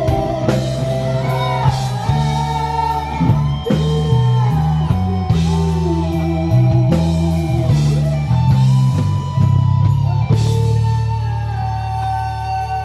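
A rock band playing live: drums with cymbal hits, a moving bass line and guitar, under a sliding lead melody.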